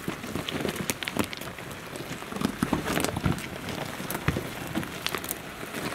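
Loose gravel and rocks crunching, with many irregular sharp clicks and cracks, from stones shifting and popping under a vehicle's tyres or feet on the scree.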